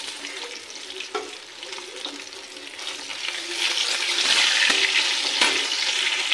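Marinated fish pieces shallow-frying in hot oil in a kadai, a steady sizzle that grows louder about halfway through. A slotted steel spatula scrapes and knocks against the pan a few times as the pieces are turned.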